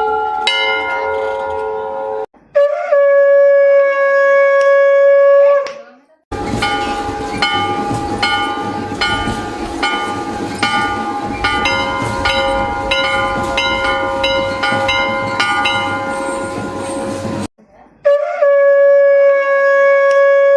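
Temple conch shell (shankh) blown in two long, steady blasts, each sliding up in pitch at the start and dropping off at the end. Between them, temple bells are rung over and over for about ten seconds, the strikes coming quickly. A bell rings out at the very start.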